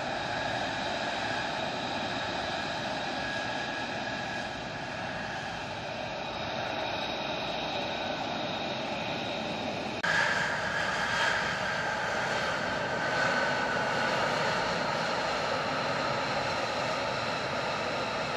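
F-35A Lightning II's F135 turbofan running on the ground: a steady high jet whine over a broad rush. About ten seconds in the sound cuts abruptly to a louder, closer whine that sinks slightly in pitch.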